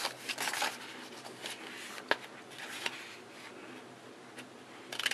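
Scissors snipping through stacked sheets of colored paper, with paper rustling and a few sharp clicks.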